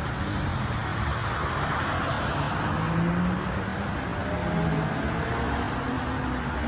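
Porsche 911's flat-six engine running at low revs as the car rolls slowly past, over a steady haze of road noise, with its note drifting slightly in pitch.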